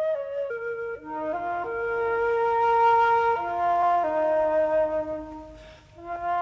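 Slow background music carried by a flute playing a melody of long held notes. The phrase fades near the end and the next one begins.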